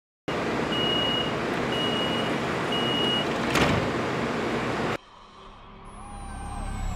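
Streetcar sounds: a loud, steady rushing noise with three high, evenly spaced warning beeps about a second apart and a short clatter after them. After a sudden cut about five seconds in, a quieter low hum builds, with a faint high whistle slowly falling in pitch.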